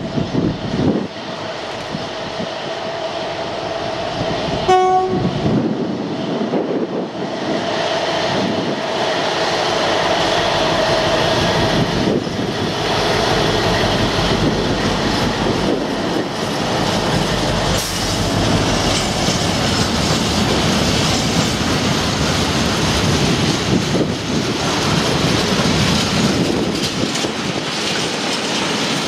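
Colas Rail Class 60 diesel locomotive 60076 approaching and passing with a train of covered steel wagons: a short horn blast about five seconds in, then the locomotive's Mirrlees eight-cylinder diesel engine going by, followed by the steady clatter and rumble of the wagon wheels on the rails.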